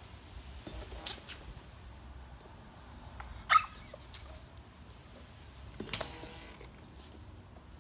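Yorkshire terrier giving one short, sharp yip about halfway through, with a few fainter knocks before and after it.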